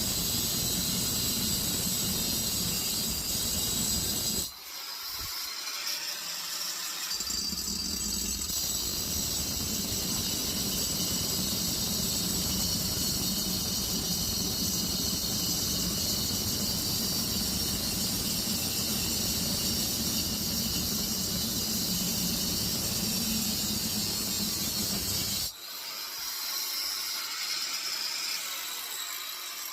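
Angle grinder cutting through a compressor's steel shell: a steady motor hum under a high hissing squeal of the disc in the metal. It stops briefly about four seconds in, starts again a couple of seconds later, and cuts out near the end.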